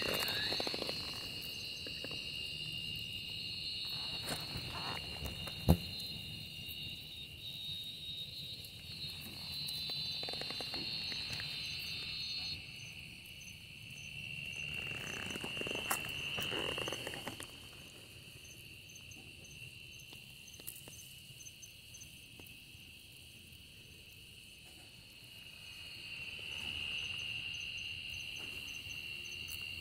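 Insects trilling: a steady, high-pitched chorus of overlapping trills, with a faster pulsing chirp above it at times. Bouts of rustling come and go during the first half, and a single sharp click sounds about six seconds in.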